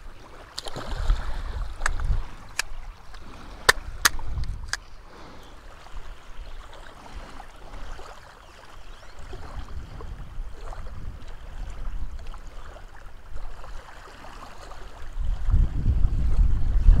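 Wind buffeting the microphone over small waves lapping at a sandy shoreline. A small splash comes just after the start as a released fish lands in the water, followed by several sharp clicks over the next few seconds and a louder low rumble of wind near the end.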